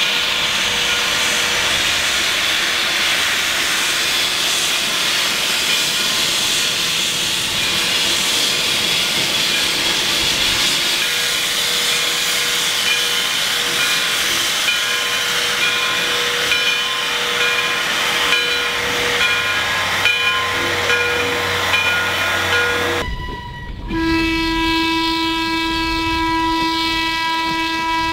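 Frisco 1630, a 2-10-0 steam locomotive, standing with a steady loud hiss of escaping steam. About 23 s in, the sound cuts to a trackside crossing, where an approaching electric interurban car sounds its horn in one steady blast lasting about five seconds.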